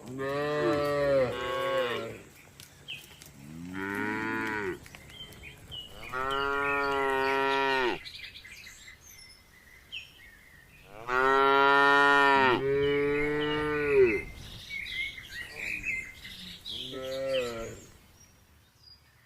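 Cow mooing: about five long, drawn-out moos, one to three seconds each, with small birds chirping in the pauses between them.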